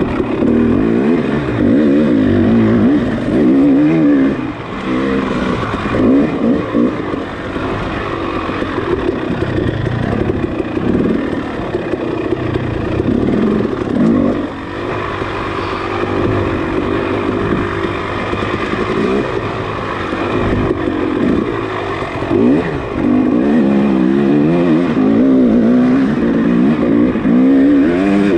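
Enduro dirt bike engine being raced, its revs rising and falling again and again with a constantly wavering pitch.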